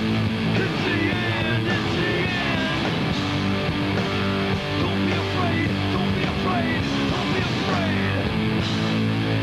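Rock band playing live and loud, with distorted electric guitar, bass and pounding drums. High sliding notes rise and fall above the band through the passage, with no sung words.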